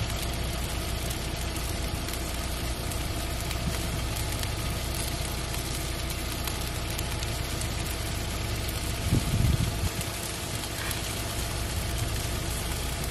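A steady engine-like hum running unchanged, over a light hiss, with one brief low thump about nine seconds in.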